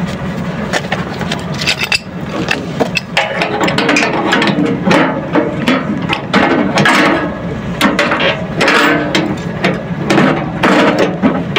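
Hand tool ratcheting: repeated clicking strokes that come thicker from about two seconds in, over a steady low hum.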